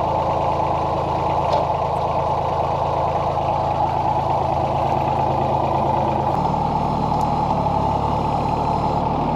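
Mahindra tractor's diesel engine running steadily. Its note shifts a little over six seconds in.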